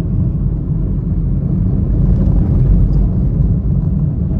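A car being driven, heard from inside the cabin: a steady low rumble of road and engine noise.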